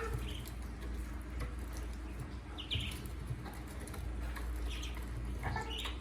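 Ducklings peeping: a few short, high peeps spaced apart, over a steady low hum.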